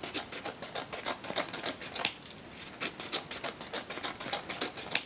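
Scissors cutting thin strips from corrugated cardstock: a quick run of crisp snips and clicks, with a sharper snap about two seconds in and another near the end.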